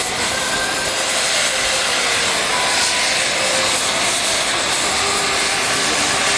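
Oxy-fuel cutting torch on a portable CNC cutting machine, running as a steady, loud rushing hiss of burning gas with a few faint steady tones over it.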